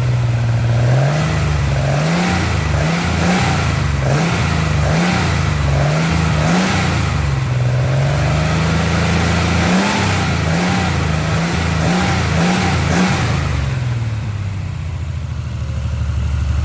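Triumph TR6 2.5-litre straight-six on triple Weber carburettors, run for the first time after a rebuild and still untuned. The throttle is blipped again and again, so the revs rise and fall, are held up for a few seconds midway, then drop back to idle near the end.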